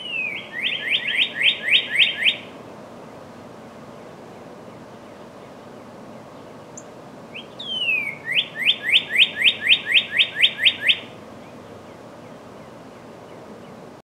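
Northern cardinal singing two phrases. Each phrase opens with a down-slurred whistle and runs into a fast series of repeated down-slurred notes, about five a second. The first phrase comes at the start, the second about eight seconds in and longer, with about eleven notes.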